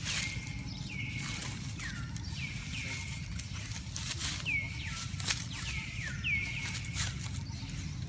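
Juvenile macaque screaming over and over while an adult pins it down, about a dozen short shrill calls, each dropping sharply in pitch and then held briefly. Sharp crackles of dry leaves come between the calls.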